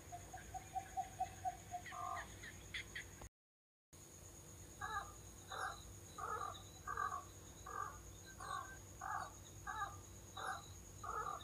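A bird calling: a quick run of short notes and a few rising chirps, then, after the sound drops out completely for about half a second, a harsh call repeated steadily about twice a second.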